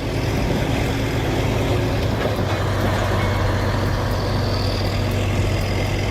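Heavy diesel engine running hard and steady under load, with a deep hum and a rough mechanical noise over it.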